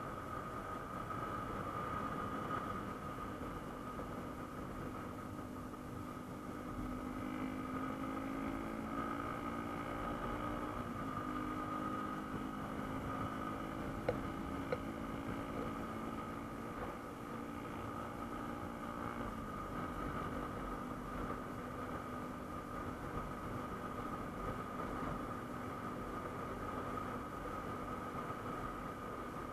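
Motorcycle engine running at a steady speed, its hum dropping slightly in pitch twice, about eleven and twenty seconds in, with a steady high tone above it. Two faint clicks come near the middle.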